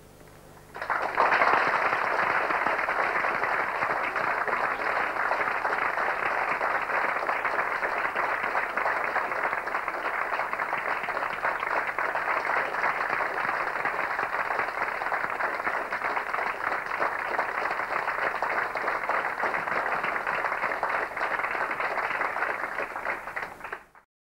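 Audience applauding, breaking out about a second in and holding steady, then cut off just before the end.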